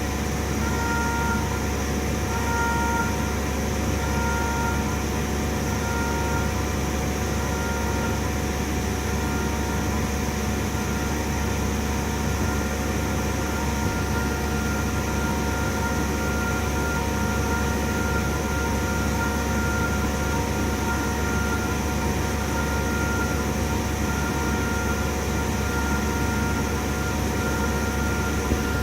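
CNC milling machine running with a steady hum and noise, over which a short two-note electronic beep repeats roughly once a second.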